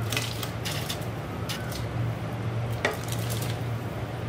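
Shredded boiled chicken being tipped from a plate into a pot of hot chicken stock: a few short splashes and scrapes over a steady low hum.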